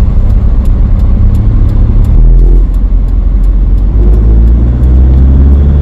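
Campervan's engine and road noise heard from inside the cab while driving, a loud steady low rumble; the engine note shifts about two seconds in.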